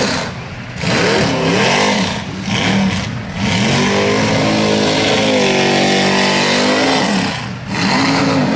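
Mega mud truck's rear-mounted engine revving hard in repeated blips, its pitch climbing and falling about once a second. The revs are then held high and fairly steady for about three seconds, drop off briefly and climb again.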